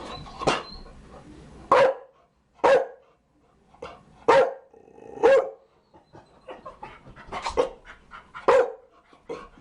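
Chow Chow barking: a string of single, sharp barks about a second apart, about eight in all, with a quick double bark near the end.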